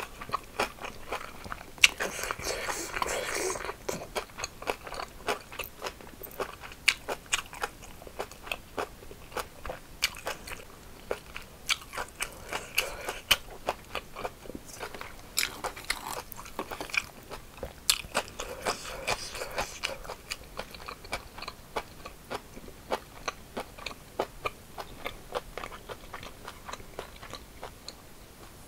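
Mouth eating crisp cucumber bibimbap: cucumber slices crunching in quick repeated bites with wet chewing, in several louder bouts of crunching.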